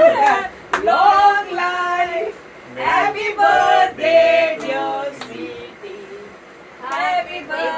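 A small group of people singing together, women's voices leading, unaccompanied, in phrases with held notes and short breaks between them.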